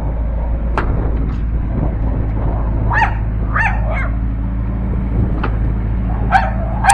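A dog barks several times in short barks, two close together about three seconds in and more near the end. Under it runs the steady low hum of the CAT 308C excavator's diesel engine running.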